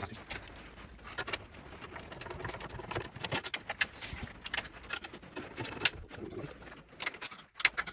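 Scattered, irregular clicks and light metallic knocks of hand tools (a ratchet and socket) being worked on the plow-mount bolts under the UTV's front end.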